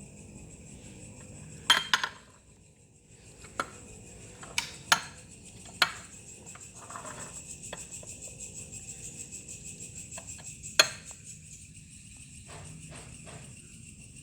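Metal tools and engine parts clinking sharply every second or so, a loudest clink near the end, while a two-cylinder two-stroke engine is taken apart. Insects trill steadily underneath.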